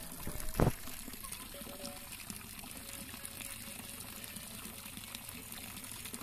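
Steady trickle of running water, with one sharp knock about half a second in.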